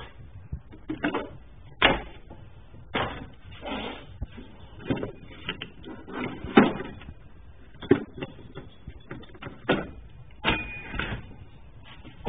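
Irregular knocks, clunks and short rustles of things being handled and moved about, about a dozen sharp hits spread unevenly with no steady rhythm.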